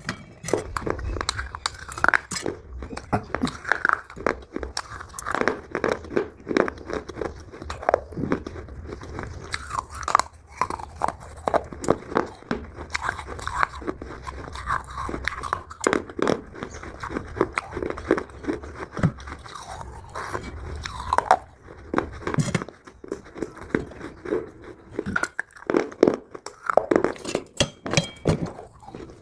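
Biting and chewing of dry Multani mitti (fuller's earth clay): a dense, irregular run of crisp crunches and crackles.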